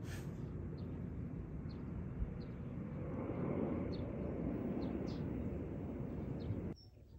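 Outdoor garden ambience: a bird gives short, high chirps about once a second over a steady low rumble that grows louder from about three seconds in. The sound cuts off abruptly near the end.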